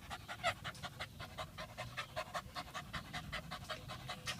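A dog panting rapidly and steadily, about six quick breaths a second.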